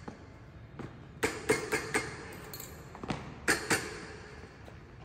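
Sharp knocks and clinks of tools and fittings against a long column loudspeaker's housing as it is assembled: four quick strikes about a second in and three more past the middle, each ringing briefly.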